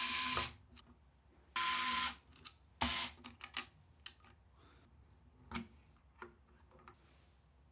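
An electric screwdriver running in three short bursts of about half a second each, a steady motor whine in each. Small clicks and taps follow as parts are handled.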